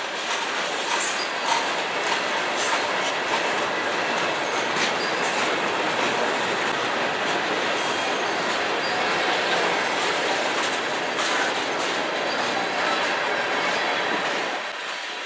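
Freight train cars rolling past, coil steel cars and tank cars: a steady rumble and rattle of wheels on rail, with brief high-pitched wheel squeals now and then. The sound drops away shortly before the end.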